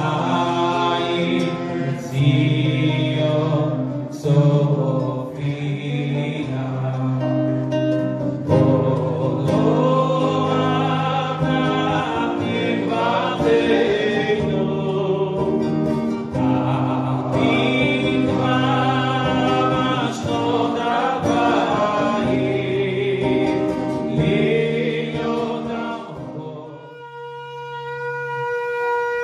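A man sings a festive melody into a microphone, accompanying himself on a strummed classical guitar. Near the end this cuts to a shofar, a ram's horn, blown in one long steady note.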